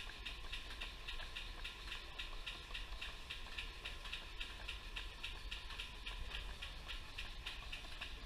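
Model horizontal single-cylinder steam engine running steadily, its flywheel turning and its cylinder beating with an even, rapid rhythm of about four beats a second.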